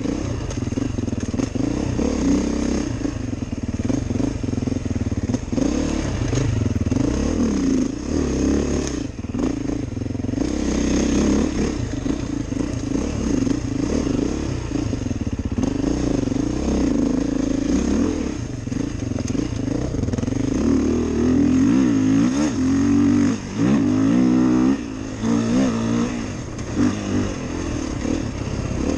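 Beta 430RR four-stroke single-cylinder dirt bike engine being ridden, its revs rising and falling with the throttle, with several quick rev sweeps near the end.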